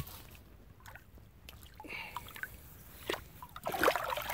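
Shallow pond water sloshing and trickling as it is stirred at the bank, with a brief knock at the very start and louder sloshing near the end.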